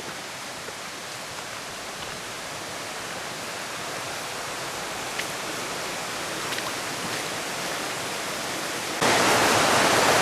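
Waterfall: a steady rush of falling water that grows slowly louder, then jumps abruptly louder about nine seconds in.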